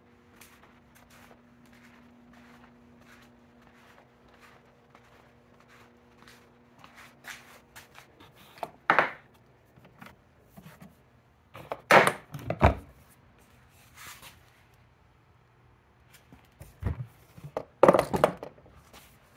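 Handling noise from a loaded plastic tool box and its hanging gear: light clicks and rustles, with louder knocks and scrapes about nine, twelve and eighteen seconds in. A faint steady hum sits under the first few seconds.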